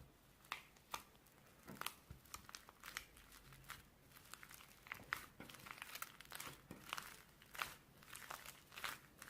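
Slime being squeezed and poked by hand, giving quiet, irregular crackling and popping clicks, several a second.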